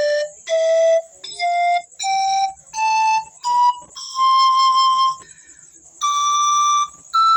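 Pan flute with thickened pipe walls, blown pipe by pipe up the scale in its high register: about nine short breathy notes, each a step higher than the one before. One note in the middle is held longer, and there is a short pause before the last two.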